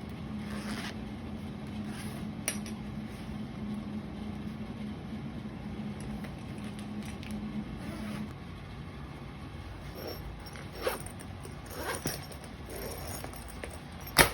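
A small machine hums steadily and cuts off about eight seconds in, followed by scattered light clicks and clinks, with one sharp click near the end.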